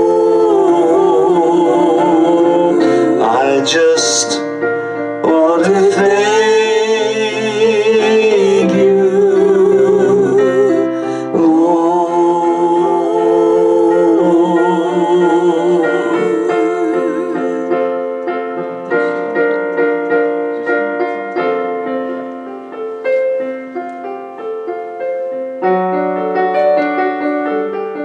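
A woman sings long notes with vibrato over piano accompaniment. About sixteen seconds in the singing stops and the piano plays on alone, its notes ringing and dying away.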